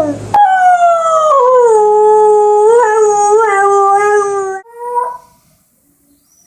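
A dog howling: one long howl that slides down in pitch and then holds with small wavers, ending at about four and a half seconds, followed by a short, fainter howl.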